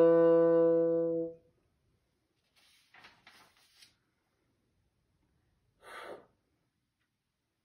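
Bassoon holding the last low note of a slow movement, fading and stopping about a second and a half in. Then near quiet, with a few soft rustles from the sheet music on the stand being turned and one short breath about six seconds in.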